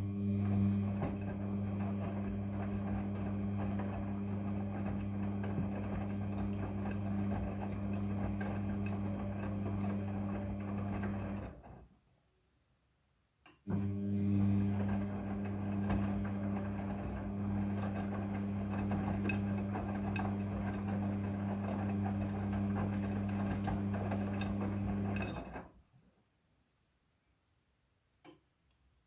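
Midea front-loading washing machine's drum motor humming as it turns the drum with the load, in two runs of about twelve seconds with a short pause between. The motor cuts off abruptly about two-thirds of the way through, followed by a couple of faint clicks near the end.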